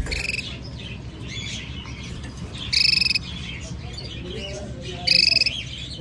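Canary chirping and twittering, with two loud, rapid buzzy trills about three and five seconds in. A brief knock comes right at the start.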